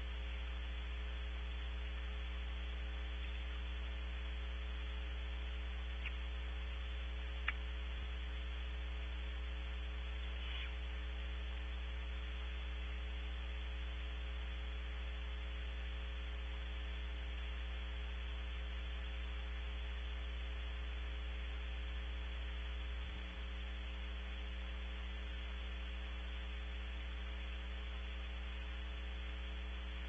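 Steady electrical hum and hiss from a nest-box camera's audio feed, with a few faint clicks.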